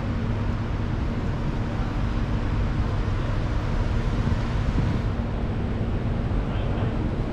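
City street ambience: a steady low rumble of traffic with a constant low hum through it, and some wind on the microphone.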